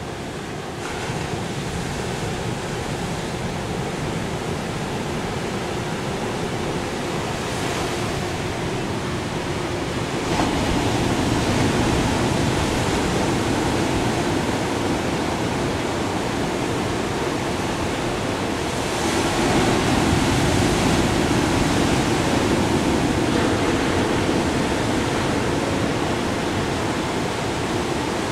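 Steady rushing noise of ocean surf and wind, growing louder about ten seconds in and again about nineteen seconds in.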